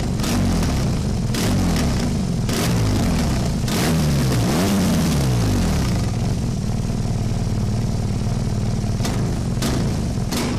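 Motorcycle engine revved up and down several times, then running at a steady pitch from about six seconds in.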